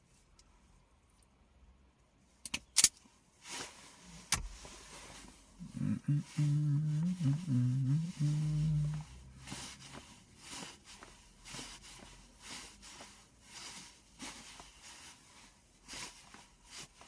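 A man humming a short wavering tune for about three seconds in the middle, between sharp clicks and irregular rustling knocks from hand tools and wire being stripped.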